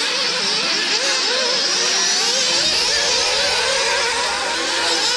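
Several nitro-engined RC racing buggies buzzing at high revs, their pitches rising and falling as they accelerate and lift off around the track.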